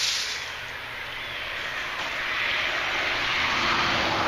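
A vehicle passing on the nearby road, its tyre and engine noise swelling gradually to a peak near the end.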